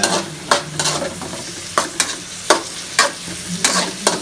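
Leftover marinade ingredients being sautéed in hot oil in a frying pan (kawali): a steady sizzle with repeated sharp strokes of a spatula stirring and scraping against the pan, about two a second.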